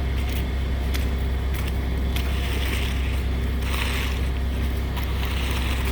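Concrete mixer truck's engine running steadily with a low hum, and two brief rushing noises around the middle.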